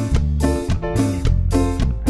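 Latin band music with congas and drums, over a low bass line that changes note about twice a second.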